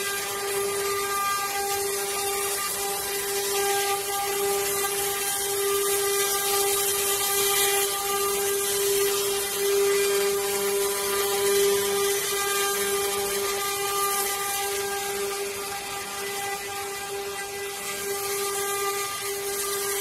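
8-head CNC wood-carving router running, its spindles giving a steady high whine over the continuous hiss of the bits cutting relief carvings into wooden panels.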